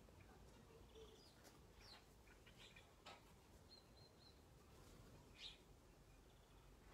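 Faint chirps of sparrows around a water tray: a few short, high calls scattered through, with a brief whistled note a little before the middle.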